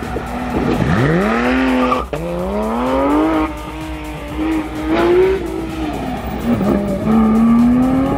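Porsche sports car engine accelerating hard: the revs climb steeply, drop suddenly at an upshift about two seconds in, then climb again. They fall back and rise once more near the end.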